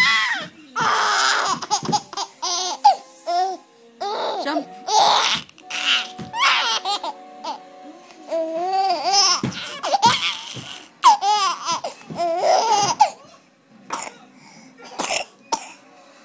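Baby laughing hard in repeated bouts of giggles, easing off after about 13 seconds.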